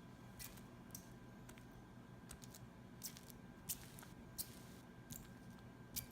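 Sticky glue-and-borax slime being worked by hand: faint, scattered wet pops and crackles, about seven of them over six seconds.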